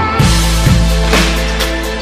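Background music with a steady drum beat, about two hits a second, over held bass notes.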